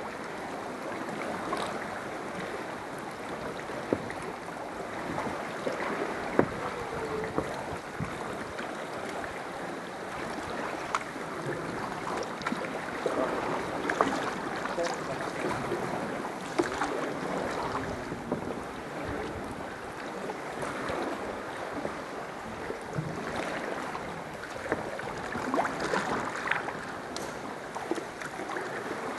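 Kayak paddling on the sea: water sloshing and splashing around the hull with irregular short paddle splashes, over a steady wash of water and wind noise on the microphone.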